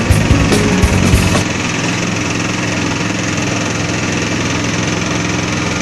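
Music with a heavy beat for about the first second and a half, cutting abruptly to a motor engine running steadily at a low, even pitch.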